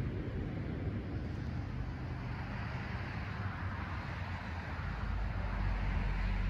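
Steady outdoor background noise: a low rumble with a hiss over it, swelling slightly about five seconds in.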